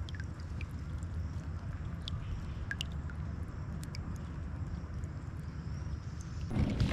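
Water dripping and trickling from a lifted crab pot's netting into the river: scattered small plinks over a low steady rumble.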